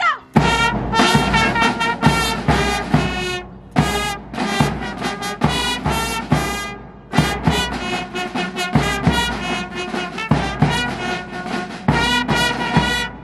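Brass marching band playing live: trumpets and a sousaphone carrying the tune over bass drum and snare drum strokes, in short phrases with brief breaks, stopping near the end.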